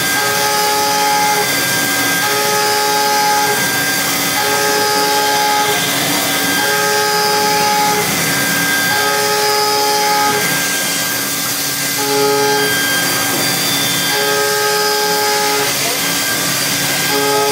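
5-axis CNC milling machine running a cutting program: a steady hiss under several whining tones that start and stop in stretches of about a second.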